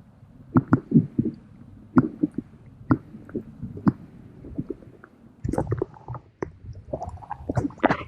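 Irregular muffled knocks and thumps over a low rumble, a dozen or so short hits with a busier cluster near the end.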